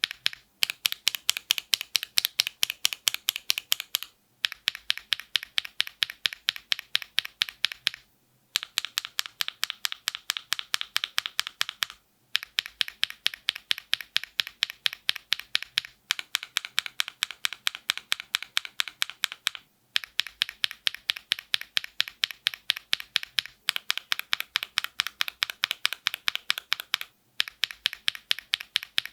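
Rapid, even typing on a mechanical keyboard's switches, about six or seven keystrokes a second. The typing comes in runs of about four seconds with short pauses between them, and the tone changes slightly from one run to the next.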